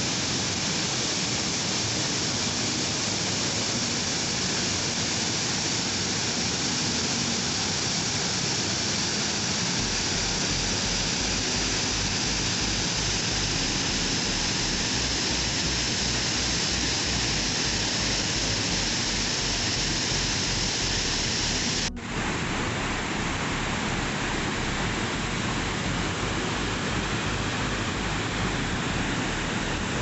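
Waterfall rushing: a steady, even roar of falling water. About two-thirds of the way through it breaks off for an instant and goes on sounding duller.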